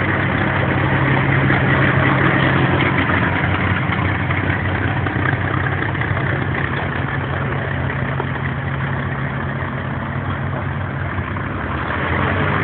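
Avro Lancaster bomber's four Rolls-Royce Merlin V12 engines running at low taxiing power, a steady loud drone as the aircraft rolls past close by.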